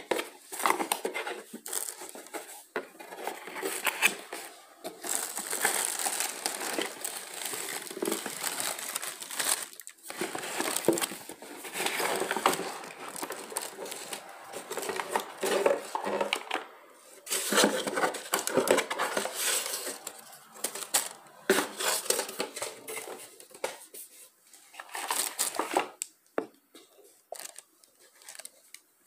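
Crinkling plastic wrap and rustling, scraping cardboard packaging as a boxed gaming headset is unpacked by hand, in a run of irregular rustles and small knocks that thins out near the end.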